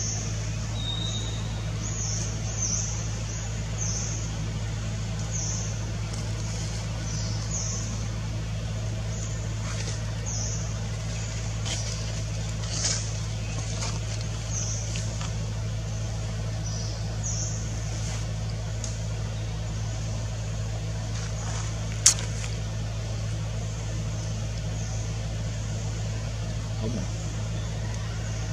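A steady low engine-like hum, with a bird giving short high chirps over and over. A single sharp click comes about 22 seconds in.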